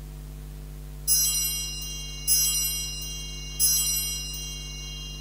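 Altar bell struck three times, about a second apart, each strike ringing on and fading: the bell rung at the elevation of the chalice after the consecration. A steady low electrical hum sits underneath.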